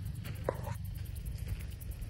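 Crickets chirping in rapid, even pulses, over a low rumble of wind on the microphone.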